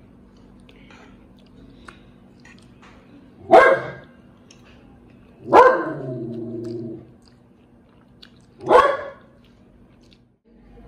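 A dog barks three times, loud and short, a few seconds apart; the second bark trails off into a lower, drawn-out call. Between the barks there are faint slurps and fork clicks from noodle eating.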